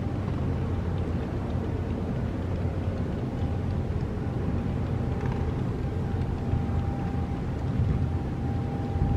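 Steady low boat-engine rumble, with a faint thin whine that grows stronger from about three and a half seconds in.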